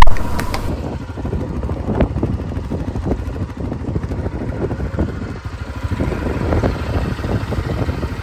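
ATV engine running during a ride, a steady rough rumble. A single loud, sharp knock comes right at the start.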